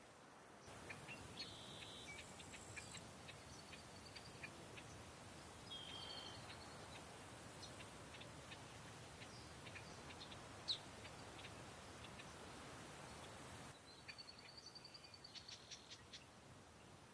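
Faint outdoor ambience: small birds calling with short high chirps and brief buzzy trills, scattered through a steady low hiss. The hiss steps up about a second in and drops back near the end.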